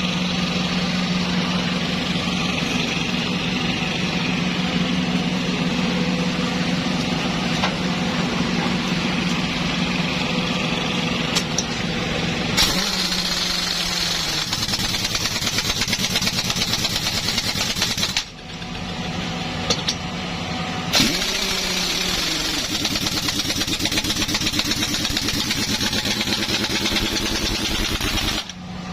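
A motor running steadily, with abrupt breaks and a short falling whine about two-thirds of the way in.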